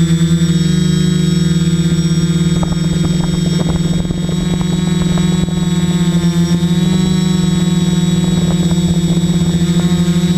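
FPV quadcopter drone's electric motors and propellers whining steadily in flight, the pitch wavering slightly and the level dipping briefly twice as the throttle changes.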